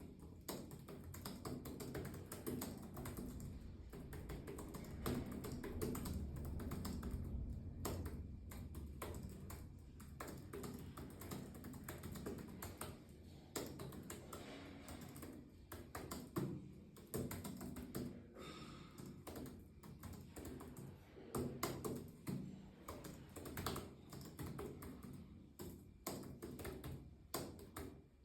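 Continuous typing on a computer keyboard, keys clicking in quick, irregular runs with short pauses.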